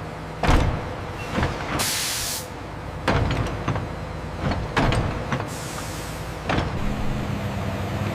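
Heavy machinery being handled: a series of metallic clanks and knocks, a short burst of air hiss about two seconds in, then an engine running steadily near the end.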